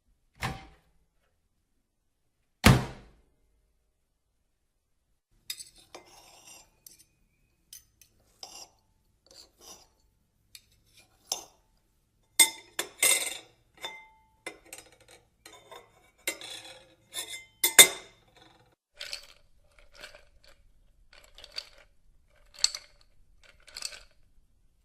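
Two heavy thuds, then a long stretch of dishes and cutlery clinking and clattering, some strikes ringing briefly.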